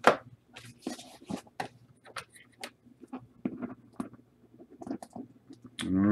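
Trading cards and their plastic sleeves and holders being handled: scattered soft clicks and rustles, with one sharper click at the start. A person makes a short voiced sound near the end.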